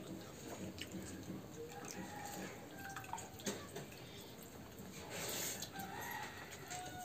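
Fingers stirring and scooping watery fermented rice in steel bowls, with dripping and small splashes. Short bird calls sound in the background.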